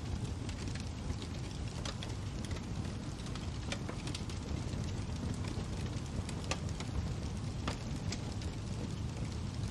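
Wood fire crackling: a steady low rumble of burning with scattered sharp pops and snaps, roughly one a second.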